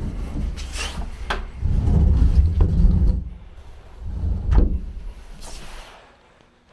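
Handling noise from a handheld camera being carried into a small room: a low rumbling and rubbing, with a few sharp knocks and scrapes. It fades away near the end.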